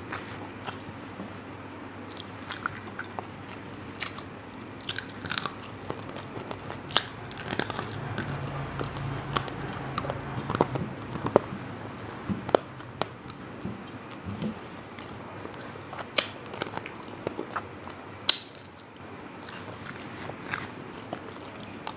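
A person eating a rice meal close to the microphone: wet chewing and mouth sounds broken by scattered sharp clicks and crunches.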